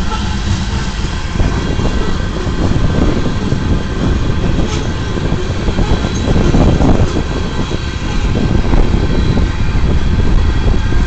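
Loaded coal hopper cars of a freight train rolling past: a loud, steady rumble of steel wheels on the rails with rapid clicking and clacking.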